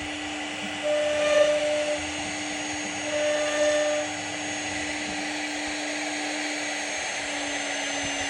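CNC router spindle running with a steady whine over the hiss of the bit cutting wood. In the first half, louder higher tones of about a second each come roughly every two seconds.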